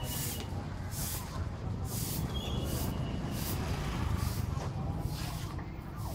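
Busy open-air night-market ambience: a steady low rumble of crowd and traffic with faint chatter, and short hissing bursts that repeat roughly once a second.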